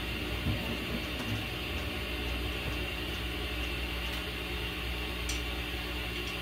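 Steady room tone: a low electrical hum with hiss, with a few faint knocks and clicks in the first second as someone moves past.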